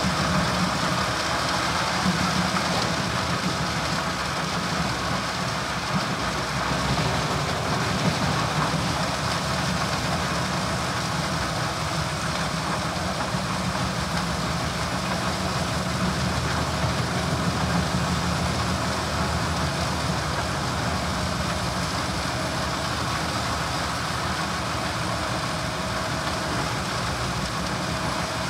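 Self-propelled wood chipper at work, chipping logs fed in by its crane and blowing the chips into a tractor-drawn wagon: a steady, loud mechanical din of engine and chipping with small surges, with the tractor's engine running alongside.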